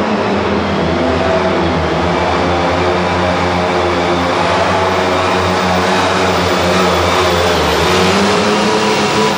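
Super stock pulling tractor engine running at full throttle under load as the tractor drags the sled. It holds a loud, steady high pitch with a slight sag and a small rise late on.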